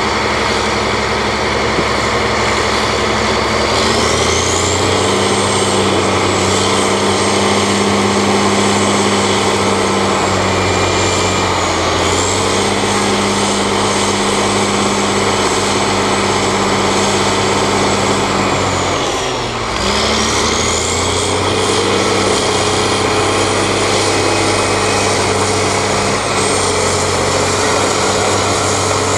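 Caterpillar D7 crawler bulldozer's diesel engine running hard, revving up about four seconds in, easing briefly, then dropping sharply about two-thirds of the way through before revving up again. A high whine rises and falls with the engine speed.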